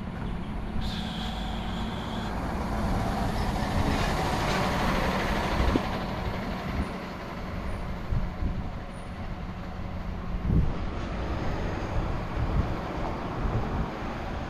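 Outdoor street sound heard while walking: a steady low rumble of wind on the microphone and traffic, with a brief high tone about a second in.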